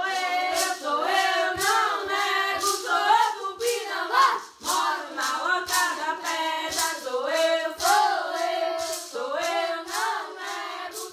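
Voices singing a melody of long, bending notes over a steady beat of about two strikes a second.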